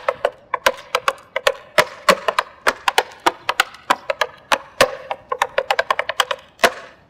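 Tap shoes' metal taps striking a wooden board in a quick, rhythmic tap-dance combination of hops and steps, a fast run of sharp clicks that stops abruptly near the end.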